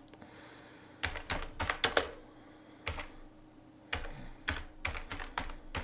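Computer keyboard typing: irregular single keystroke clicks, some in quick runs with short pauses between, starting about a second in.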